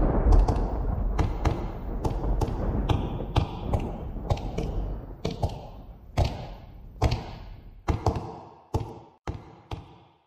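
A low rumble of thunder dies away while a series of sharp taps on a hard surface goes on, two or three a second at first, then spacing out toward the end, each with a short ringing echo.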